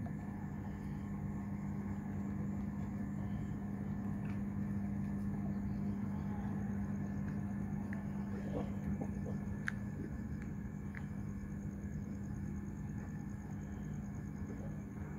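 A steady low hum and rumble, with a few faint ticks about halfway through.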